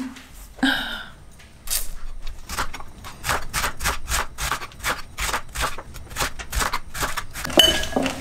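Chef's knife slicing through a fennel bulb onto a plastic cutting board: a steady run of crisp chops, about three or four a second, starting about two seconds in. Near the end comes a louder knock with a brief ring.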